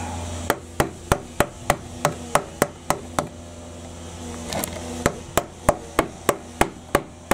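A hammer striking a wood chisel to cut a notch out of old, gnarly timber: a run of sharp, evenly spaced blows, about three a second, a short pause in the middle, then another run.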